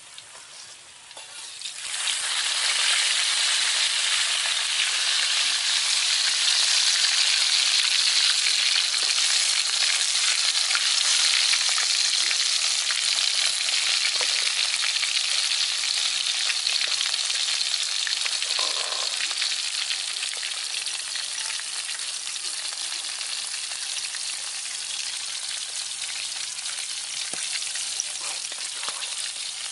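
Pieces of water snake frying in hot oil in a wok: a steady loud sizzle that starts suddenly about two seconds in and eases a little over the second half.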